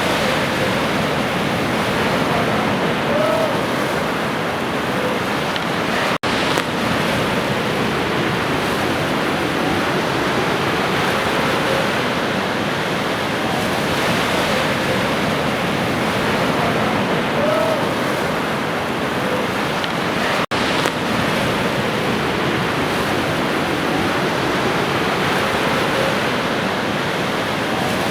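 Ocean waves washing on a shore, a steady rushing surf with little rise and fall. It cuts out for an instant twice, about six seconds in and again about twenty seconds in.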